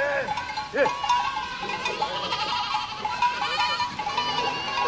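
A herd of goats bleating, many overlapping calls at once, with two louder, lower bleats in the first second. Bells on the animals clink steadily underneath.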